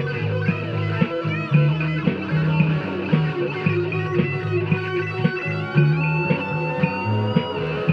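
Rock band playing: electric guitar over a moving bass line and a steady drum beat, with a held, sliding guitar note near the end.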